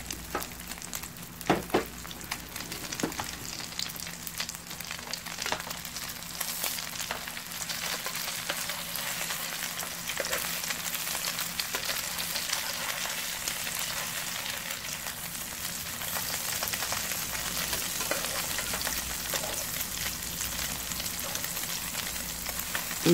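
Egg and vegetable pancake batter frying in oil in a nonstick pan, a steady sizzle, with a few sharp clicks in the first few seconds.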